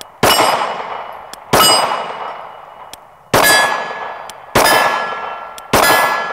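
Five 9mm shots from a Glock 48 pistol, spaced about one to one and a half seconds apart. Each shot is answered at once by steel plate targets clanging and ringing, and the ring fades before the next shot.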